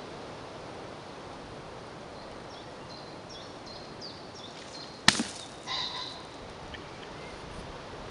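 An atlatl dart striking the hanging target with one sharp hit about five seconds in, followed by a shorter clatter under a second later.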